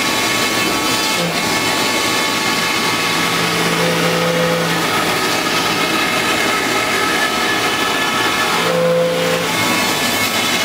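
CNC router spindle milling a white foam block: a steady high whine over the rush of the cutter. A lower hum comes in twice, about a second in for several seconds and again near nine seconds.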